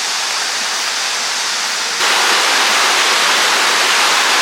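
Mountain valley stream rushing over rocks, a steady loud rush of water, running full after recent rain. It jumps abruptly louder about two seconds in.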